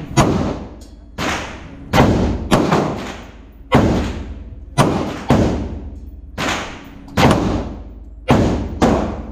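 Handgun shots at an indoor range, about a dozen at an uneven pace of roughly one every half second to a second. Each shot is a sharp crack followed by a short echoing tail.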